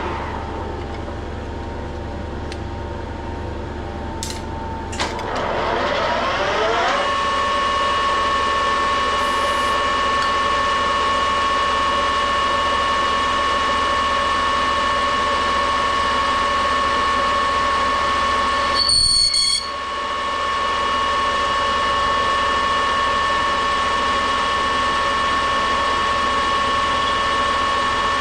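Metal lathe running, turning an aluminium bar: a low machine whine that rises in pitch about five to seven seconds in as the lathe speeds up, then holds steady, with a short louder burst about two-thirds of the way through.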